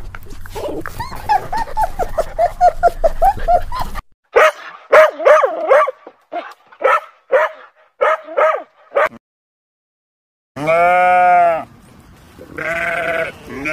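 A dog yelps in a quick run of short high whines, then barks several times. After a brief silence a goat bleats: one long call and then a shorter one.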